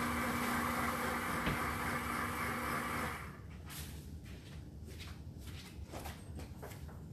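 Pampered Chef Deluxe Cooking Blender's motor running steadily as it stirs the cooking lemon curd, then cutting off about three seconds in. Faint clicks and knocks of handling in the kitchen follow.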